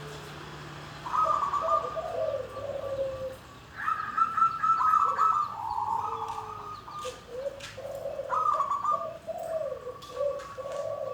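Wild-caught zebra dove (perkutut) singing. It repeats its cooing phrase about three times, each a quick run of higher notes followed by lower warbling coos.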